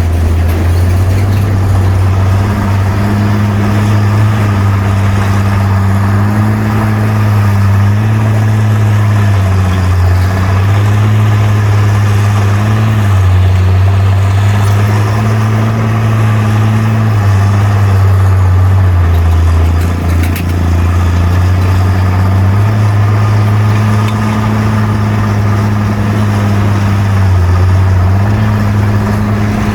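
Bulldozer's diesel engine running under work with a low, steady drone, its pitch stepping slightly up and down every few seconds, with a brief dip about two-thirds of the way through.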